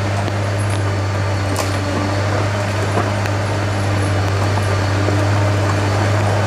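Rottne H20 forestry harvester's diesel engine running with a steady low drone as the machine creeps forward on its tracked bogie wheels, with a few light clicks.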